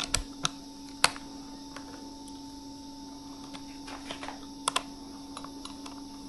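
Irregular sharp clicks and taps from small tools and parts being handled, a few louder ones near the start and a close pair about two-thirds of the way through, over a steady low hum.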